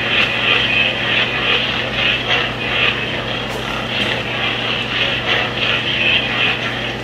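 Lightsaber sound board in an upgraded Master Replicas Graflex-style hilt playing a steady low electric hum, with swing sounds swelling and fading again and again as the blade is swung.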